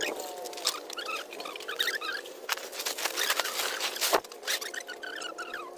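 Large plastic tarpaulin rustling and crackling as it is lifted and spread out, with a sharp knock about four seconds in.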